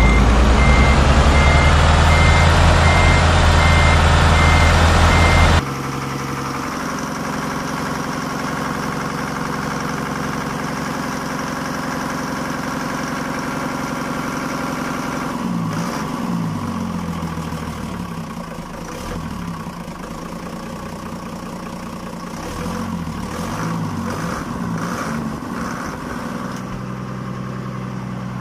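Remote-control toy dump truck's built-in sound effects: a simulated truck engine with steady reversing beeps, which cut off abruptly about five seconds in, leaving a quieter simulated engine idle. In the middle stretch a wavering revving sound comes and goes, with a few clicks.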